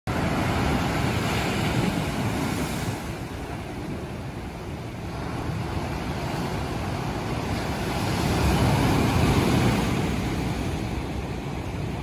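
Sea waves breaking and washing over rocks and onto a sandy shore, a continuous rushing that swells louder at the start and again about eight to ten seconds in.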